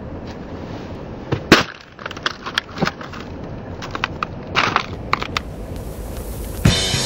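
A plastic cup on cobblestones crushed with one loud crack about one and a half seconds in, followed by scattered crackles and clicks of the plastic. Music comes in near the end.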